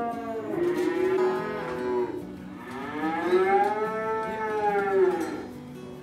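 Cattle mooing in long, drawn-out calls: two shorter moos in the first two seconds, then a longer one of nearly three seconds that rises and falls in pitch.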